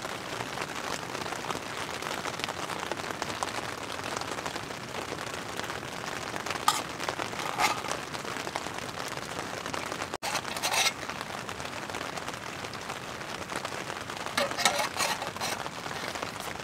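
Steady rain pattering on a tent's fabric, heard from inside the tent. A few short scrapes and clinks of a spoon in a metal mug come through it, about a third of the way in, again a little past halfway, and near the end.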